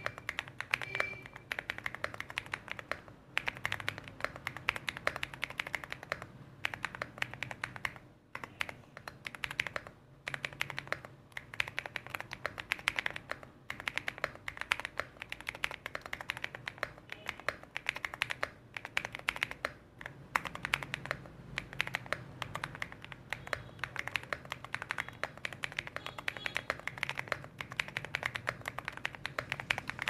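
Continuous typing on a Rainy75 mechanical keyboard after its custom mod, with SA-profile ABS double-shot keycaps, modded stabilizers and replaced foam. A dense stream of key clacks with a few short pauses, meant to sound deeper than it did stock.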